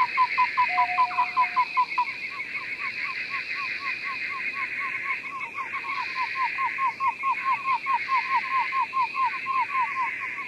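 Frogs calling: a rapid run of short, falling notes, about five a second, over a steady, higher-pitched chorus.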